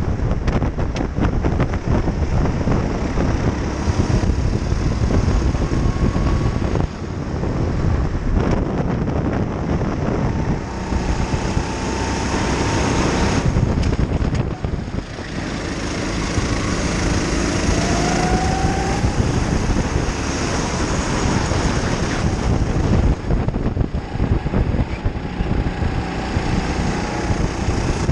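Go-kart engine running at racing speed, heard from a camera mounted on the kart, under heavy wind and rushing noise; the engine note rises and falls as the kart goes through the corners.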